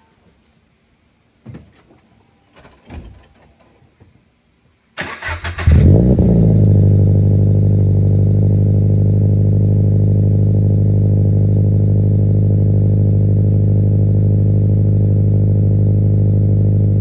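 Scion FR-S's 2.0-litre boxer four started with the catback exhaust removed, running almost straight-piped. After a couple of faint knocks, the starter cranks briefly about five seconds in, the engine catches with a short rev flare, and it settles into a loud, steady idle.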